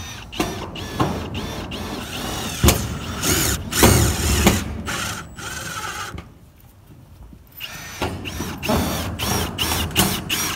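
Milwaukee M18 cordless drill/driver driving screws into corrugated metal roofing sheets: a string of short whirs as the motor spins up and down with each screw, with sharp knocks among them. There is a pause of a couple of seconds a little past the middle, then more whirs.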